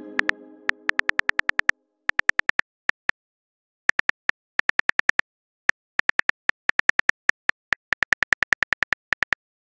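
Phone keyboard tap sounds: quick runs of short, sharp clicks broken by brief pauses, as a message is typed. At the start a message-sent chime fades out over the first second or so.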